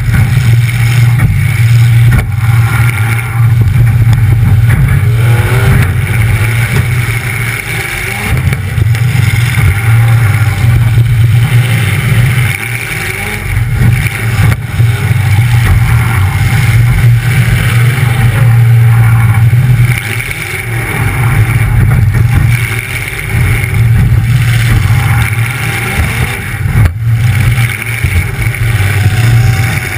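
Demolition derby car's engine running loud through short open exhaust stacks that come straight up through the hood, with the throttle easing off and coming back on several times.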